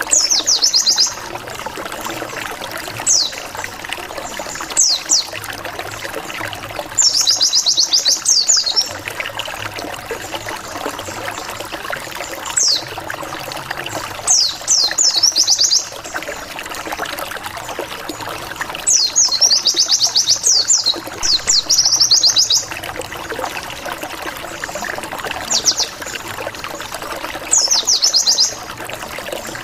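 White-eye (pleci) calling in repeated bursts of quick, high, falling 'wit wit wit' notes, some short and some running on for a second or more. A steady trickling-water noise runs underneath.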